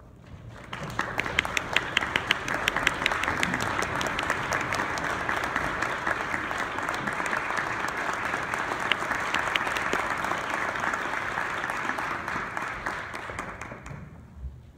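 Audience applauding in a concert hall. The clapping builds up about a second in, holds steady, and dies away near the end.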